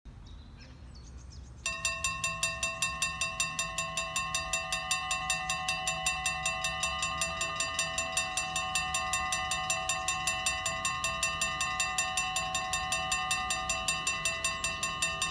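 Dutch level-crossing warning bells start ringing a little under two seconds in, a rapid, even ding-ding-ding of several strokes a second that keeps going. This is the crossing's alarm for an approaching train.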